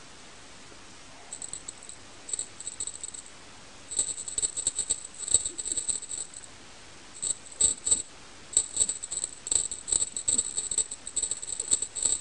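A small jingle bell jingling in quick shaken bursts, a few at first and then almost continuous from about four seconds in, as a cat's wand toy is jerked about and batted.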